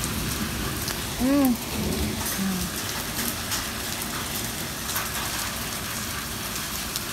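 Rain mixed with hail falling on stone paving: a steady hiss with many scattered sharp ticks. A brief rising-and-falling vocal sound comes about a second in.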